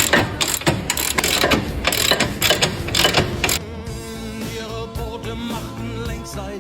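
Background music with a vocal line; over the first three and a half seconds a rapid, irregular run of sharp mechanical clicks and knocks sounds over it, then only the music continues.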